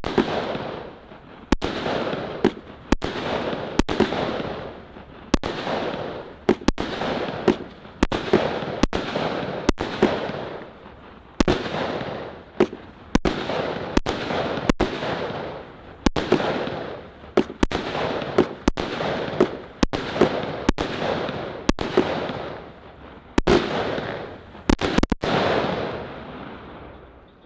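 Celtic Dawn 25-shot firework barrage (cake) firing: sharp bangs one after another, often in close pairs, each followed by a hiss that fades away. The shots stop near the end.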